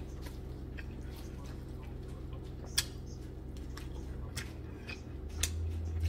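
Person eating with their fingers: soft wet mouth clicks and chewing, with a few sharp ticks, the loudest about three seconds in, over a low steady hum.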